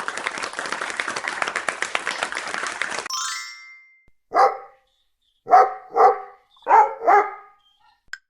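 A dog barking five times: a single bark, then two quick pairs. Before the barks comes a rapid rattling sound effect lasting about three seconds, ending in a short chime.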